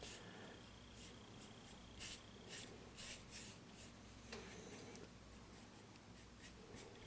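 Faint, scratchy strokes of a paintbrush laying black oil paint onto the painting surface, a run of short strokes at an uneven pace, thinning out after about four seconds.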